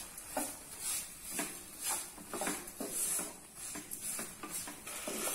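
A black spatula scraping and stirring crumbly chhena and sugar around a non-stick kadhai, in short strokes about twice a second.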